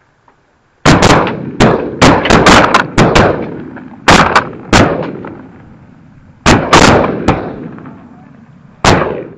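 Shotguns from several guns firing a rapid volley of about fifteen shots in three bursts, with one last shot near the end. Each shot is followed by a fading echo.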